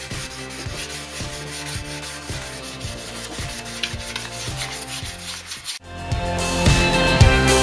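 Hand wet-sanding of a primed alloy wheel with 800-grit wet-and-dry paper, a gritty back-and-forth rubbing. It plays over background music with a steady beat, and the music gets louder about six seconds in.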